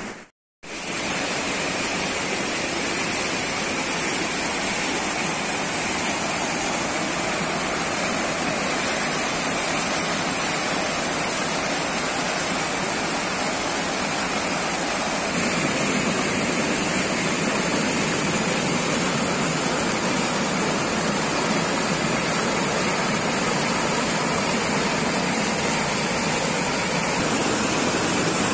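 Steady rush of a small waterfall cascading over rocks. It drops out briefly just after the start, then resumes and grows a little louder about halfway through.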